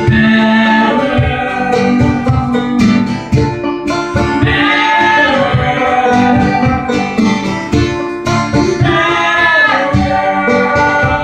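Live acoustic band music: banjo and acoustic guitar picking a steady rhythm, with wordless vocal harmony notes held three times over it.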